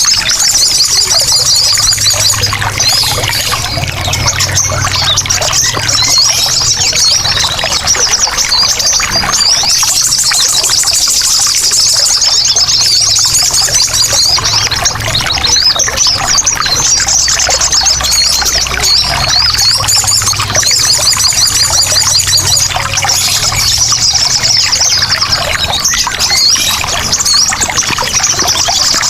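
Sogon birds calling in noisy, rapid high trills that come in waves every few seconds, over a steady trickle of running water.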